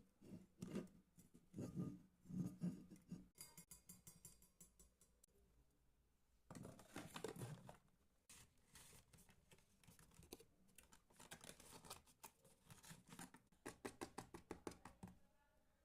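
Faint handling noises of a new water bottle and its packaging: irregular taps, clicks and rustling, with a quick run of clicks near the end.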